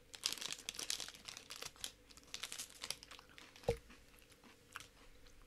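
Chocolate bar wrapper crinkling and rustling as it is handled, in a run of small crackles, with one soft thump about two-thirds of the way in.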